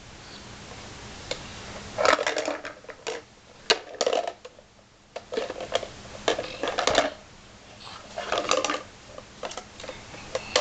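Small plastic blocks clattering and knocking against a plastic toy bucket as it is handled and tipped out, in irregular clusters of quick knocks.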